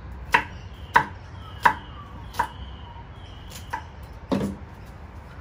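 Kitchen knife chopping carrots on a wooden chopping board: about seven sharp chops, unevenly spaced, roughly one every half to three-quarters of a second.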